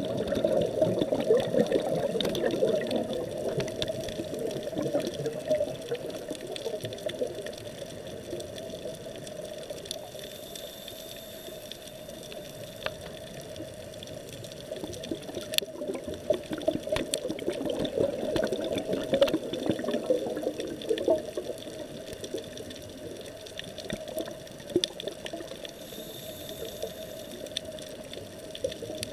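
Muffled underwater gurgling and rushing of a scuba diver's exhaled bubbles, heard through the camera's housing, swelling and fading a couple of times, with a few sharp clicks.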